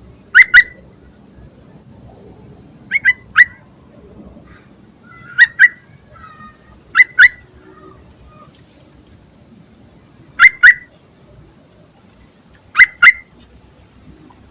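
Yellow-vented bulbul (trucukan) calling: six loud, sharp double notes, each pair quick, repeated every two to three seconds.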